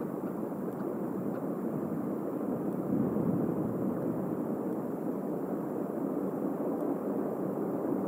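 Steady, even outdoor rushing noise picked up by an outdoor nest-camera microphone, with a few faint ticks.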